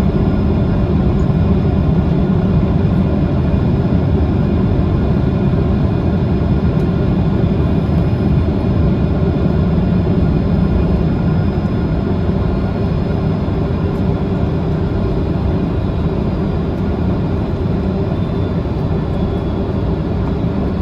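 Steady low rumble of a jet airliner's engines and airflow, with a few faint steady tones above it, easing off slightly in loudness partway through.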